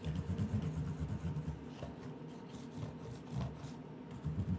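Steady low rumble of a kerosene heater running, with a few faint soft ticks as white glue is squeezed from a plastic bottle onto cardboard.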